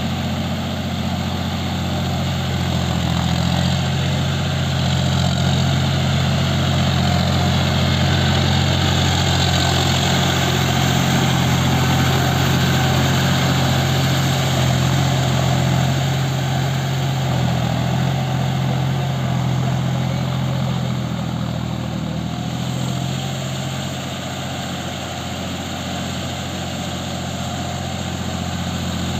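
John Deere tractor's diesel engine running steadily under load while it drives a rotary tiller through flooded paddy mud. It grows louder in the middle as the tractor passes close, then eases off a little near the end as it moves away.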